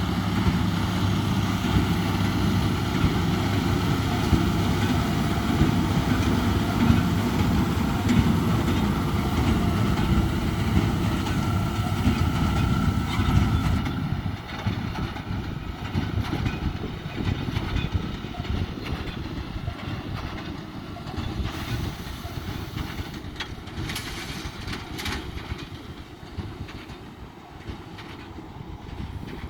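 Tractor-driven Krone CombiPack round baler-wrapper running, with a steady engine drone and clattering machinery. About halfway through the noise drops sharply and the low drone fades, leaving lighter mechanical clatter with a few sharp clanks near the end.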